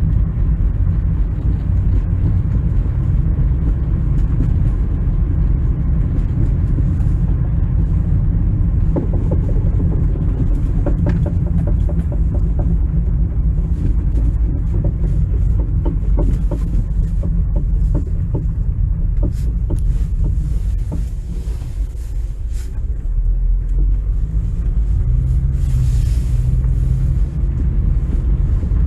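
Road and drivetrain rumble inside a moving 2006 Toyota Camry, with a run of irregular knocks through the middle stretch. The knocking comes from the passenger side when turning right or coasting and braking, and a friend suspects a worn right CV axle.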